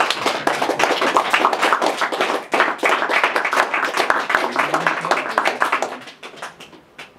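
Applause: hands clapping quickly and unevenly, thinning out and dying away about six seconds in.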